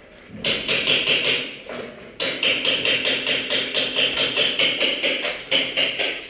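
Airsoft gunfire in rapid automatic bursts: a short burst about half a second in, then a longer one of several seconds from about two seconds in until near the end.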